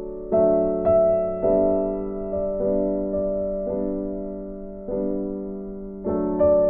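Background music: soft keyboard chords, each struck and left to fade, with a new one about every second.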